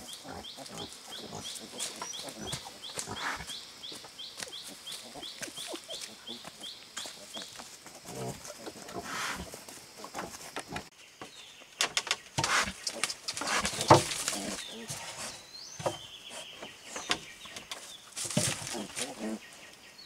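Farm animals: a run of short high chirping calls, about three a second, over the first eight seconds, then scattered clatter and noisy bursts, loudest a little past the middle and again near the end.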